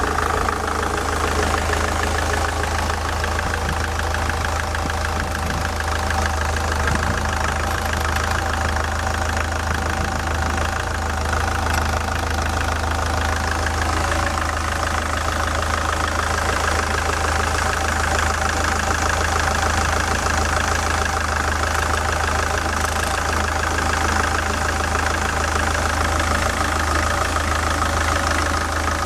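SsangYong Kyron's D20DT four-cylinder turbodiesel idling with knocking from the accessory-belt tensioner, whose spring swings back and forth; the owner traces the knock to a worn tensioner, its pulley running off-centre on the belt. The tone changes about halfway through.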